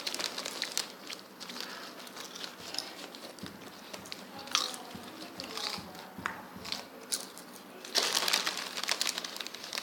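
Crisp packets crinkling and crisps crunching as they are eaten: many short crackles, with a denser burst of crinkling about eight seconds in.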